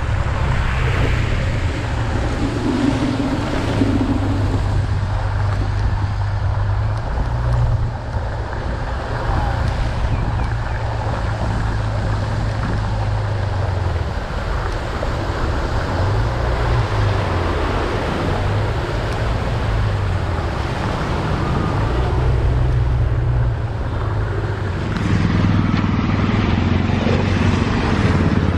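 Motor scooter's engine running while riding, its low hum shifting up and down in pitch with the throttle, over a steady rush of wind and road noise.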